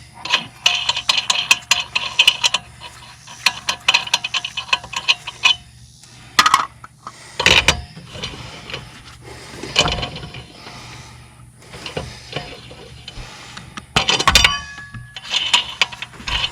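Lug nuts being spun off the wheel studs and handled: a run of light metallic clicks and clinks, then a few louder separate knocks, one of them near the end.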